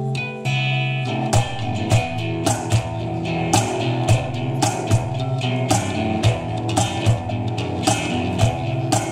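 Acoustic guitar, electric bass and cajón playing a rock song together with no singing. Steady cajón strikes come in strongly about a second in, giving a regular beat under the held bass notes and strummed guitar.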